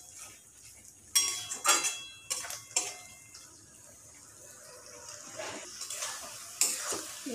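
Metal spatula scraping and knocking against a steel kadai while stirring a thick peanut and potato curry. There are several knocks in the first three seconds, with the pan ringing briefly after some of them, then a quieter stretch of soft stirring and another knock or two near the end.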